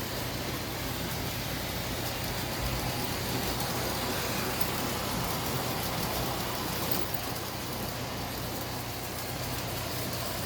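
G scale model train running on its track: a steady rolling rumble of wheels on rail with the locomotive's motor hum underneath.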